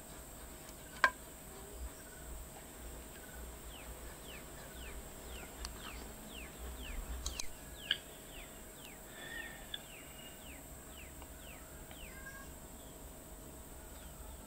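A bird calls a long series of short, quick downward-sliding whistle notes, two to three a second, starting about four seconds in, over a quiet outdoor background. A single sharp click sounds about a second in.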